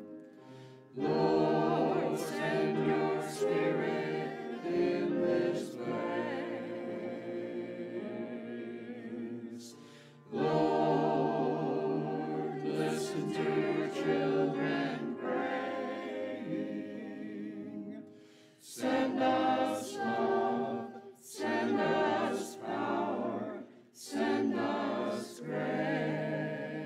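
Mixed men's and women's church choir singing in phrases, with short breaths between them.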